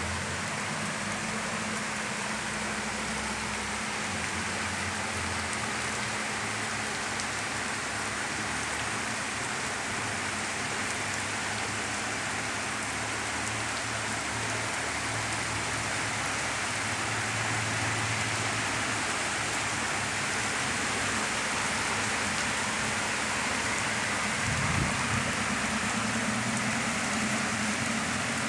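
Heavy, steady downpour of rain pouring down and drumming on surfaces.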